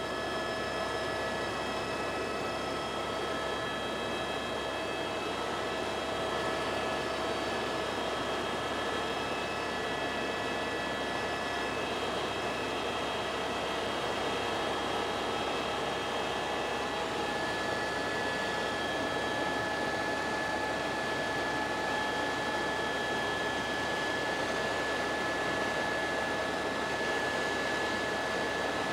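Helicopter in flight heard from inside the cabin: a steady rush of engine and rotor noise with several steady whining tones on top.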